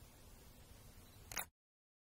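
Faint open-air background hiss, then one sharp click of a DSLR camera's shutter firing about one and a half seconds in.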